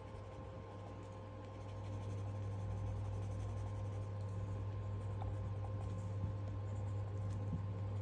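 Watercolour pencil scratching lightly on sketchbook paper in short colouring strokes, over a steady low hum.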